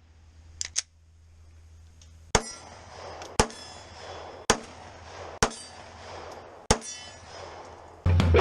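Five gunshots about a second apart, each followed by a short ringing tail. Electric-guitar music starts near the end.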